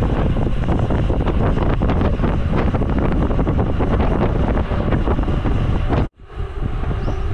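Heavy wind buffeting on the microphone of a camera riding on a moving bicycle, a loud rumble that breaks off abruptly about six seconds in and comes back a little softer.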